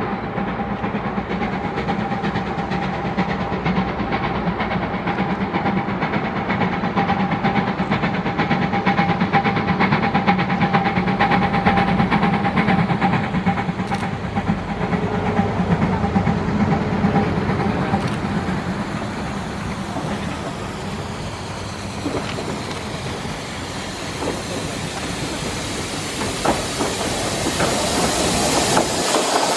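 Narrow-gauge steam locomotive 609.76 hauling its train toward and past the listener: a continuous rumble of exhaust and wheels on rail, with a steady tone through roughly the first twelve seconds. A loud hiss of steam rises near the end as the engine draws close.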